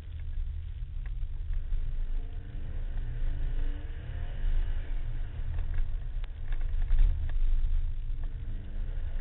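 Subaru WRX rally car's turbocharged flat-four engine heard from inside the cabin, accelerating with its pitch rising through the revs several times. A few sharp knocks come about two-thirds of the way in.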